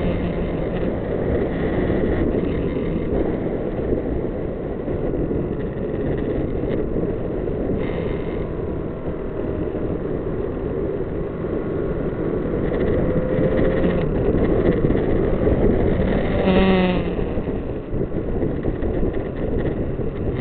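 Wind rushing over the microphone of a riding Kawasaki Z900, its inline-four engine running underneath at road speed. The engine note rises in pitch twice in the second half.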